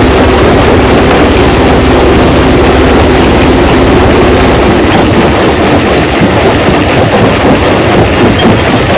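Rock crushing machine running loudly: a steady mechanical drone with rattling clatter, turning rougher and more irregular about halfway through.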